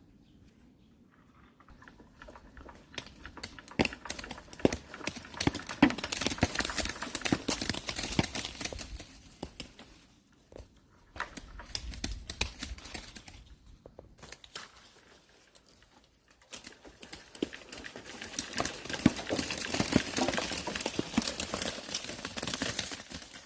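Crinkling, rustling handling noise full of small sharp clicks, coming in three bursts with short lulls between.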